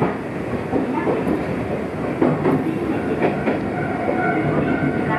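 Gakunan Railway electric train running between stations, heard from inside the car: a steady rumble with wheels clicking over rail joints. A faint whine comes in during the second half.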